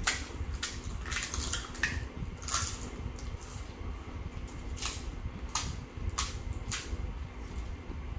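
Crisp cracking and crunching of hollow fried fuchka (panipuri) shells being poked open with fingers and bitten, about a dozen sharp snaps at irregular intervals, with light clatter on china plates. A steady low hum runs underneath.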